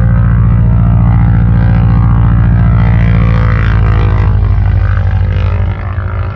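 The nine-cylinder Pratt & Whitney R-1340 Wasp radial engine of a 1945 North American SNJ-6 Texan running loud and steady, its sound dropping off a little near the end.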